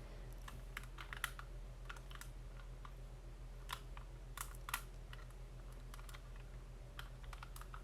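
Faint, irregular plastic clicks and clacks of a 3x3 Rubik's Cube being turned and handled, over a steady low hum.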